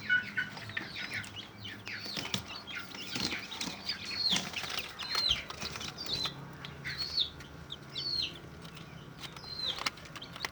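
Newly hatched ayam kampung super chicks peeping: repeated short high peeps, each falling in pitch, with scattered light clicks.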